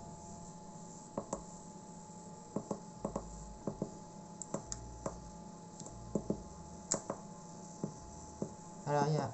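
Janoel 12 egg incubator running with a steady faint hum, while its control buttons on the lid are pressed, giving a string of small irregular clicks.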